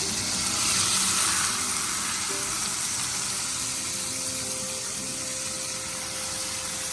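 Lamb steaks sizzling in a smoking-hot pan of olive oil, a dense steady sizzle that swells slightly about a second in as the steaks go down. The sizzle shows the pan is hot enough to sear and brown the meat.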